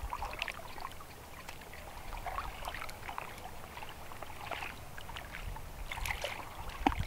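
Faint, irregular lapping and trickling of water, a scatter of small splashy ticks over a low steady hiss.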